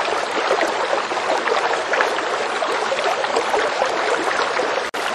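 Fast stream water running over rocks: a steady, dense rush of water that cuts out for an instant near the end.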